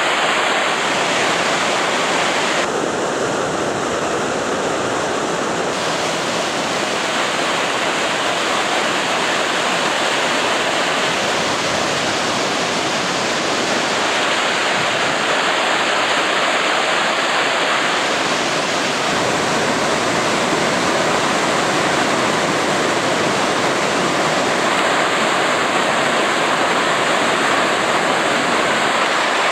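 Whitewater of the Brenta river rushing steadily and loudly, a continuous even roar of moving water.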